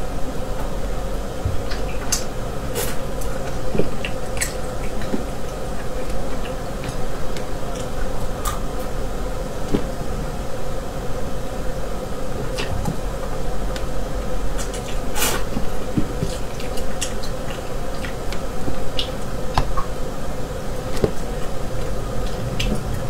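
Close-up eating sounds from a person picking meat off a spicy rabbit head with her fingers and chewing it. Scattered wet clicks and smacks sound over a steady background hiss, the sharpest click coming about fifteen seconds in.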